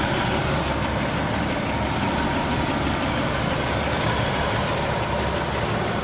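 Ford 200 cubic-inch straight-six idling steadily, heard close to the open engine bay.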